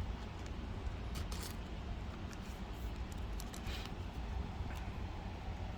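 Trading cards being handled: light, brief rustles and flicks of card stock as cards are slid off a pack stack one after another, over a steady low hum.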